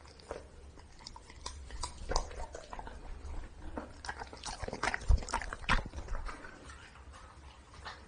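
A golden retriever chewing a soft red jelly ball: quick wet smacking and clicking mouth sounds that come thick for several seconds, loudest around five seconds in, then thin out near the end.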